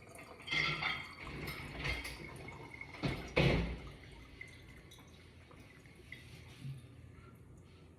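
Water splashing and dripping in a kitchen sink during hand dishwashing, with a few louder splashes and knocks about three seconds in before it settles to quieter trickling.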